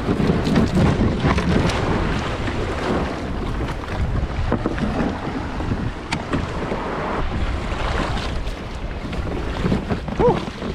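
A sit-on-top kayak being launched from a shingle beach: the hull grinding and clattering over pebbles, then small waves washing around it. Wind buffets the microphone.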